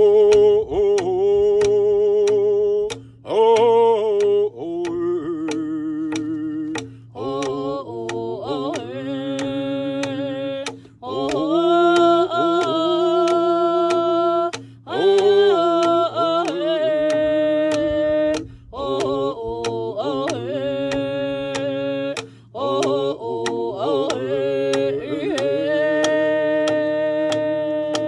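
Singing to a steady hand-drum beat, a little over two strikes a second. The voices sing long held and sliding notes in phrases of a few seconds, with short breaks between them, while the drum keeps going.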